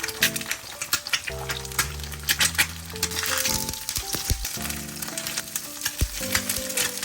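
Food sizzling as it fries in a pan, a steady hiss with many short sharp clicks through it.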